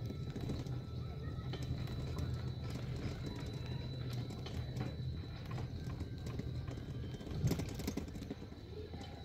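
Single-seat chairlift rattling and clicking as it rides along its haul cable, over a steady low rumble, with a louder knock about seven and a half seconds in.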